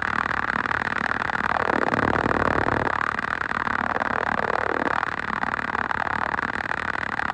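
Delivery van driving, with steady road and engine noise in the cab and music from the van's radio under it.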